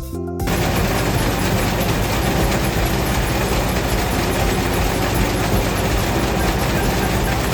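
Mitsubishi combine harvester running, a steady dense mechanical clatter over a low engine hum. It cuts in about half a second in, as music stops.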